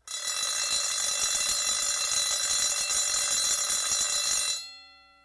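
Alarm bell ringing: a hammer strikes a metal bell in rapid, continuous strokes. It cuts off about four and a half seconds in, and the bell keeps ringing out and fades.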